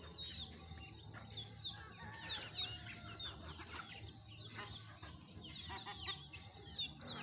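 A flock of chickens and chicks feeding: many chicks peeping in short, high, falling chirps, with hens clucking now and then.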